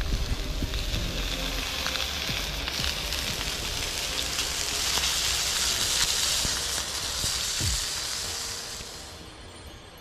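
Meat frying in a pan over an open log campfire, sizzling steadily, with crackles from the burning wood. The sizzle grows louder about three seconds in and fades near the end.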